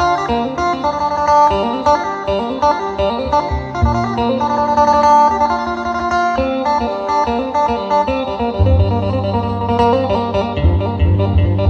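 Music with a plucked-string, guitar-like melody and a deep bass line, played loud through a PA rig of paired double-15-inch subwoofers and column speakers. The bass grows heavier late on.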